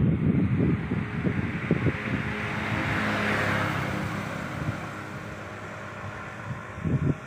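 A motor vehicle passing by, its noise swelling in the middle and fading away, with wind rumbling on the microphone.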